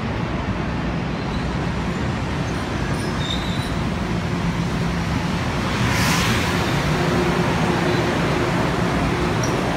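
Budd M3 electric multiple-unit train moving alongside the platform, giving a steady rumble and motor hum. There is a short burst of air hiss about six seconds in, after which it grows a little louder with a higher hum.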